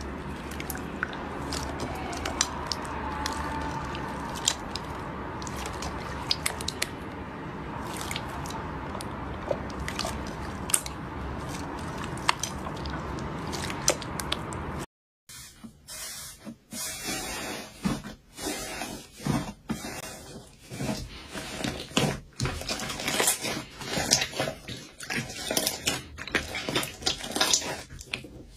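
Slime being squished and poked by hand, with many small wet clicks and pops. About halfway through there is a brief dropout, after which the pops come thicker and the steady background hiss is gone.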